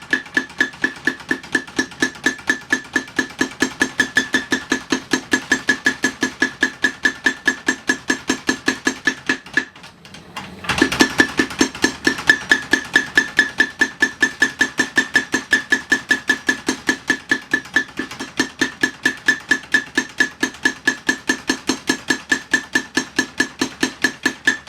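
Vintage 25 kg Sakamoto mechanical belt hammer striking hot steel in a steady run of about four ringing blows a second, forging out a san-mai knife blade. It pauses briefly about ten seconds in, then resumes with louder blows.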